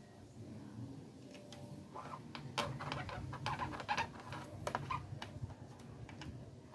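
Screwdriver turning the screw that holds a TV power-supply regulator to its aluminium heatsink: a cluster of sharp metallic clicks and scrapes of the tip against screw and heatsink, starting about two seconds in.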